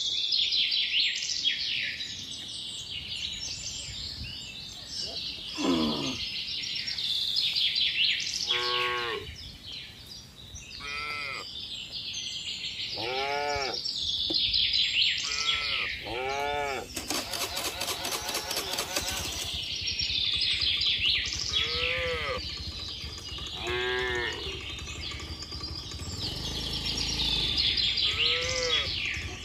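Cattle mooing, about nine short, fairly high-pitched calls a second or two apart, one rising call near the start, with birds chirping throughout.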